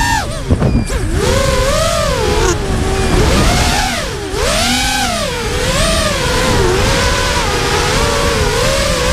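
FPV racing quadcopter's brushless motors whining, the pitch swooping up and down about once a second as the throttle is worked through turns, with a sharp dip and stutter about half a second in. A low rushing noise runs underneath.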